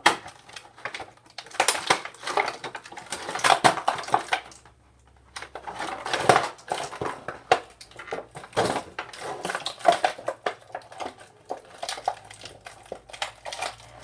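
Crinkling and crackling of a plastic and cardboard action-figure package being handled and pulled apart: a busy run of quick rustles and clicks, with a short pause about five seconds in.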